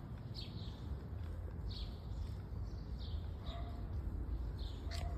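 Small birds chirping, short high calls every second or so, over a steady low rumble.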